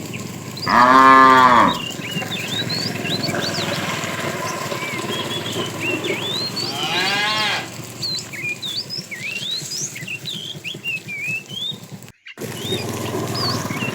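Cows mooing: one loud, arching moo about a second in, then a second, rising call around seven seconds. Small birds chirp throughout.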